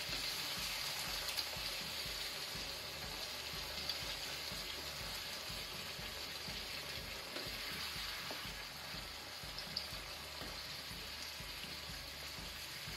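Chicken and potato curry sizzling and bubbling in a frying pan as a little water is added, a steady hiss that slowly eases off, with a few faint scrapes of a wooden spatula.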